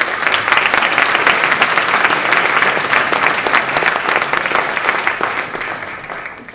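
Audience applauding: many hands clapping together. It is loud through the middle and dies away near the end.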